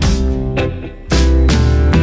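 Background music: guitar-led instrumental track with a steady rhythm, dropping briefly about half a second in before coming back at full level.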